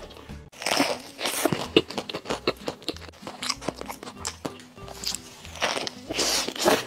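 Crunching bites into a crispy flatbread, with loud bursts about a second in and again near the end and smaller crunches of chewing between, over background music.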